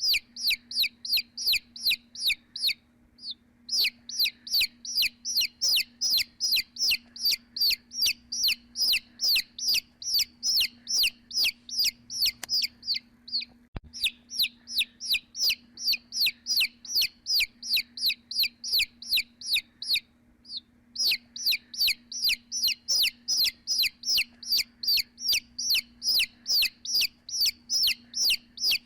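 Baby chick peeping: a rapid string of loud, short peeps falling in pitch, about three a second, with a few brief pauses.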